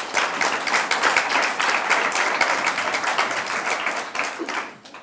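Studio audience applauding with many hands, dying away near the end.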